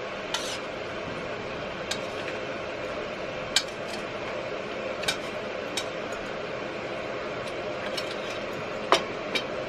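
Cutlery clinking on plates now and then during a meal, about seven short clicks with the loudest near the end, over a steady background hum.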